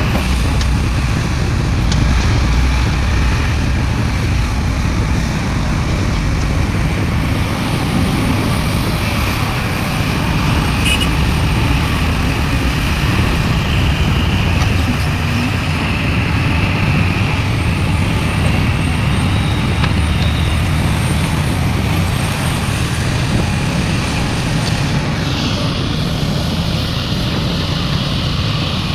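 Heavy diesel machinery, a large excavator's engine working while it loads a dump truck, running steadily with a low, even engine noise.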